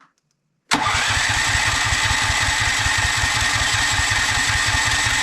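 Briggs & Stratton 10,000-watt generator engine turned over on its electric starter. It starts abruptly about a second in and cranks for about four and a half seconds with a fast, even chugging beat, then cuts off suddenly near the end. The cranking is done to send the fresh oil up through the engine.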